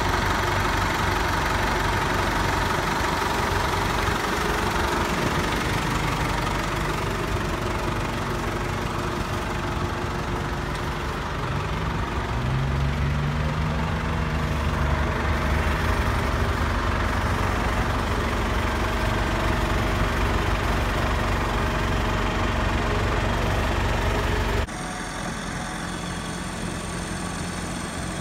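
Ford 7740 tractor's diesel engine running steadily up close, with a brief rise and fall in pitch about halfway through. Near the end the sound cuts abruptly to the tractor running quieter, farther off.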